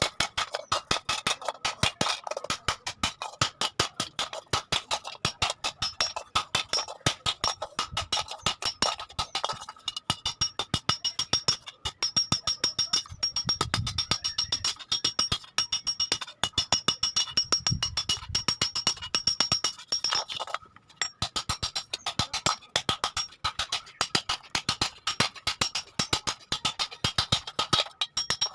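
Hammer blows on iron at an anvil: a rapid, regular run of strikes with the metal ringing between them, broken by a brief pause about two-thirds of the way through.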